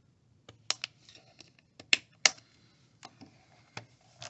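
Irregular sharp plastic clicks and snaps from a Chromebook's plastic case as the hinge cover's tabs are worked loose with a plastic pry tool and the lid is closed. There are about eight clicks, the loudest about two seconds in.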